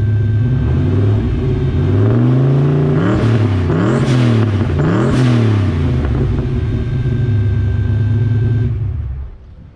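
Turbocharged Ford Fox-body Mustang V8 idling with a rumble through a full 3-inch dual exhaust with Borla XS straight-through mufflers, heard at the tailpipe. In the middle it is revved several times, the pitch rising and falling with a rushing hiss on each rev, then it settles back to idle and is shut off near the end. A steady high whine from the loud fuel pump runs under the idle.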